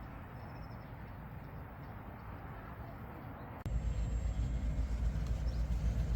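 A low, steady outdoor rumble with a brief faint bird chirp under a second in. About three and a half seconds in it cuts abruptly to a much louder, steady low road rumble inside a moving car.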